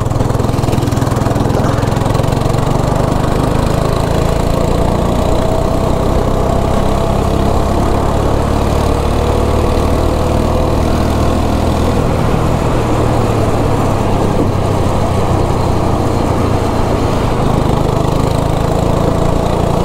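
Go-kart's single-cylinder engine running steadily at speed, heard up close from the driver's seat, its pitch drifting slightly as the throttle changes.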